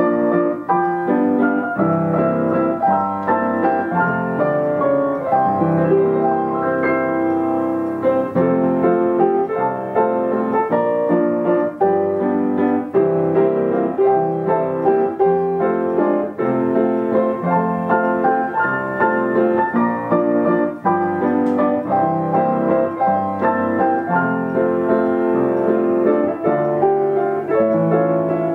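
Yamaha upright piano playing a popular tune as a continuous stream of notes and chords, with nobody at the keyboard: the piano is playing itself through a player system.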